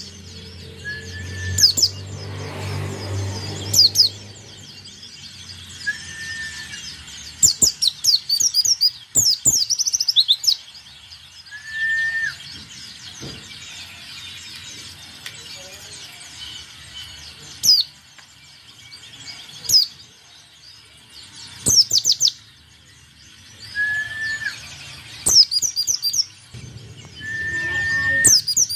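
Caged white-eye (pleci) calling: clusters of sharp, very high chirps and brief twitters a few seconds apart, with a short clear whistled note recurring every few seconds.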